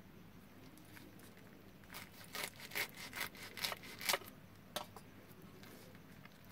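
A rolled taro-leaf roll being sliced on a boti, a fixed curved blade held down by the foot. Starting about two seconds in, about eight short cutting strokes follow in quick succession for roughly three seconds.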